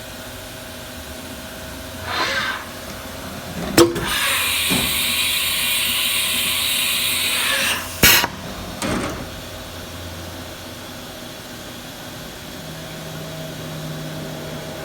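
Pneumatic tool change on a Haas VF4 vertical machining center. A short hiss of air is followed by a sharp clack, then about four seconds of steady air hissing, a second sharp clack and a brief final hiss, all over the machine's steady hum.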